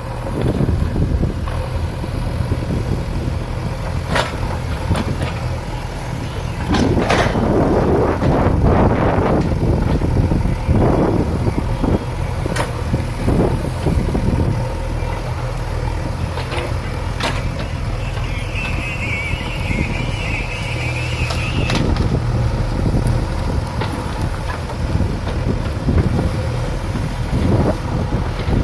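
Backhoe loader's diesel engine running steadily while the machine digs, with repeated loud noisy surges as the bucket works. The biggest surge comes about a quarter of the way in.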